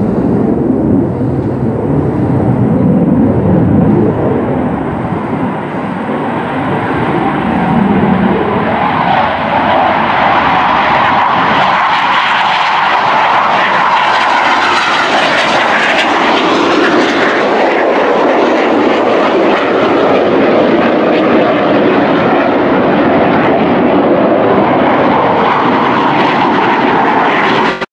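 Aero L-159 ALCA light jet, with a single turbofan engine, flying low past overhead: loud continuous jet noise. It starts as a low rumble, turns higher-pitched about a third of the way in, then holds steady until it cuts off suddenly at the end.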